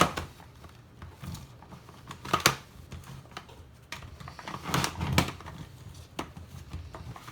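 Giant 18 cm plastic Rubik's cube (He Shu) being turned by hand, its big layers clacking and knocking in several separate turns spread a second or two apart.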